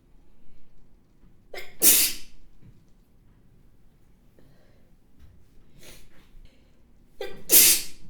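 A woman sneezing twice, about six seconds apart. Each sneeze is a short voiced catch followed by a loud, forceful, spraying blast of air.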